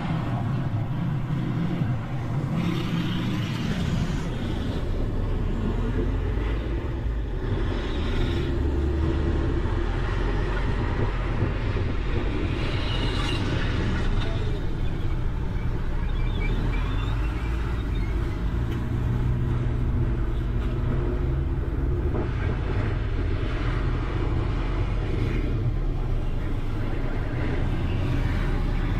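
Truck engine and road noise rumbling steadily while riding on its open flatbed, mixed with the street traffic of motorcycles and cars around it.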